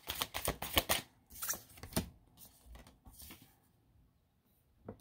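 A deck of reading cards being shuffled by hand: a quick run of card flicks in the first second, then a few sparser slaps of cards that stop about three and a half seconds in, with one last faint click near the end.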